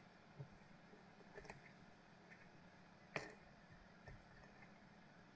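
Faint, scattered clicks of a pick and tension wrench working the pins of a Kale Kilit 164 BNE lock, with a sharper click about three seconds in.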